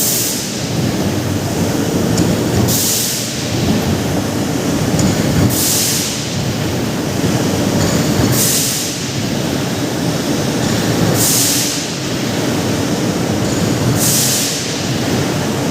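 Combined bar drawing machine for 32 mm bar running under load with a steady heavy rumble. A short sharp hiss breaks in about every three seconds.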